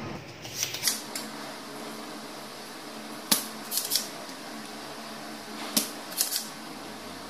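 A handful of sharp clicks and knocks as a desoldering pump and soldering iron are picked up and handled on a workbench, over a steady low background noise. The sharpest knock comes a little over three seconds in.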